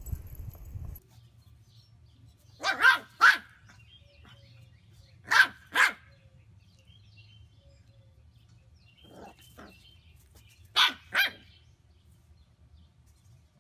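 A puppy barking: four pairs of short, high barks, the third pair fainter than the rest.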